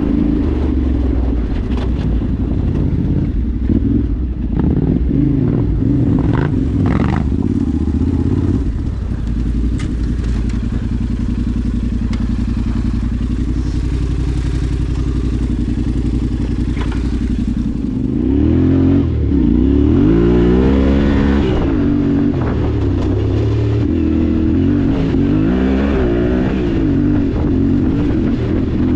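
Vehicle engine running steadily under way. From about eighteen seconds in, its pitch rises and falls over and over as the engine speed changes.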